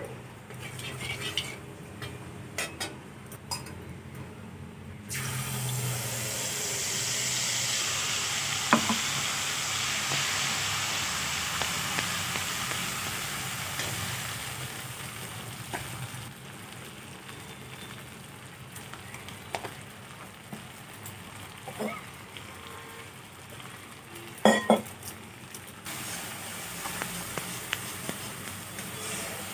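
Paste frying in hot oil in a metal wok: a loud sizzle breaks out about five seconds in as it hits the oil, then slowly dies down, and picks up again near the end. A flat metal spatula stirs and scrapes, with a few sharp knocks against the pan.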